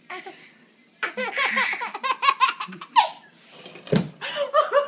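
A toddler's belly laughter in quick repeated bursts, starting about a second in and picking up again near the end, with a single sharp knock just before it resumes.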